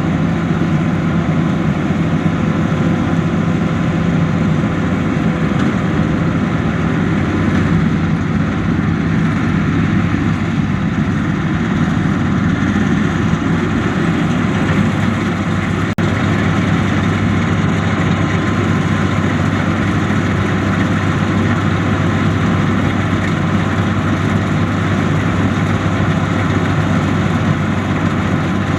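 Combine harvester running steadily in a rice paddy, a loud continuous engine and machinery drone. About halfway through, its hum settles to a lower pitch.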